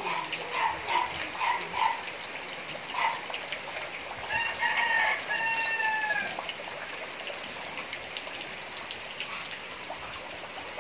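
A rooster crows once about four seconds in: one long call in two parts, slightly falling in pitch. Before it comes a run of short clucking notes, and a steady hiss of water runs underneath.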